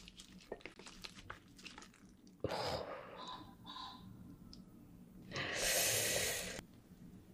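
Close-miked sticky, wet food-handling sounds as a glazed piece of meat is lifted out of a pan of melted cheese and the cheese stretches, with scattered small clicks. A louder hissing rustle lasting about a second comes a little past five seconds in.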